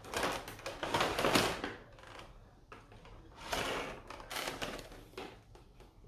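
Statue packaging being handled: cardboard and plastic rustling and scraping in several bursts, with a few clicks.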